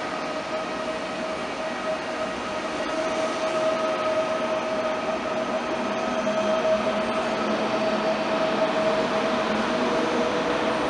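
Deutsche Bahn ICE high-speed train moving along an underground station platform: a steady rolling rumble with a held high whine, growing gradually louder.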